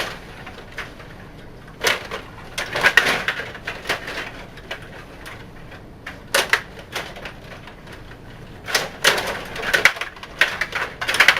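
Table hockey game in play: clusters of quick clicks and clacks as the rod-controlled players are spun and pushed and the puck strikes players and the boards, in bursts a few times with short lulls between.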